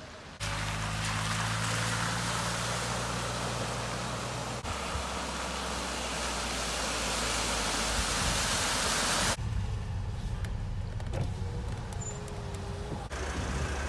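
Motor vehicles on a flooded road: an engine hums steadily under a loud rush of water spray thrown up by tyres driving through standing floodwater. About nine seconds in the sound cuts to a quieter engine idling in slow traffic on a wet street.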